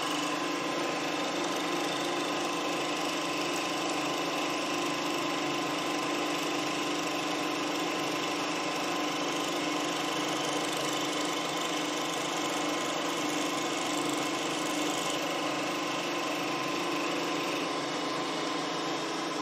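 Milling machine spindle driving a carbide cutter through a steel lathe parting blade under flood coolant: a steady machining whine with a constant hum beneath it, starting and stopping abruptly.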